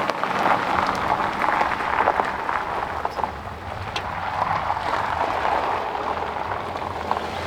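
Tyres rolling on a gravel road, a steady crackling and crunching noise with many small clicks.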